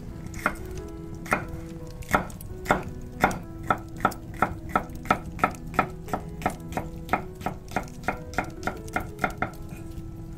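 Chef's knife slicing red bell pepper into strips on an end-grain wooden cutting board: sharp knife taps on the board, a few spaced out at first, then quickening to about three a second and stopping shortly before the end. Soft background music runs underneath.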